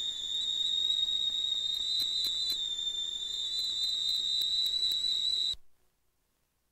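A steady, high-pitched whistle-like tone with one faint overtone, held unchanging and then cut off abruptly about five and a half seconds in.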